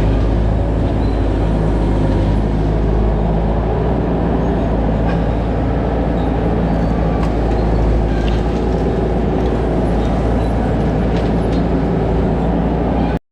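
Skid steer's engine running steadily while working gravel, with several steady pitched tones over a heavy low rumble; the sound cuts off abruptly near the end.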